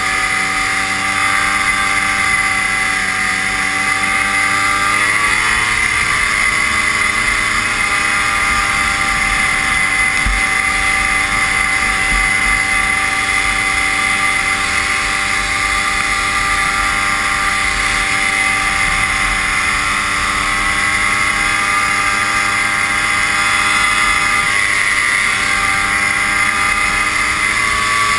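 Vintage snowmobile's two-stroke engine running under way at a steady cruising speed, over a steady rush of wind and track noise. The engine pitch rises about five seconds in, then holds steady.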